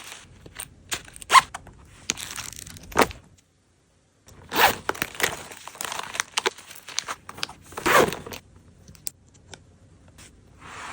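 Packing sounds from small items and a pouch: sharp clicks and taps as things are handled and set down, and stretches of rasping, zip-like noise, the loudest about eight seconds in. A brief dead silence falls about four seconds in.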